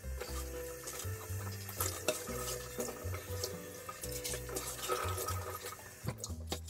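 Kitchen faucet running, its stream splashing onto and into a stainless steel pot as it is rinsed, with light clinks of the pot against the sink, over background music.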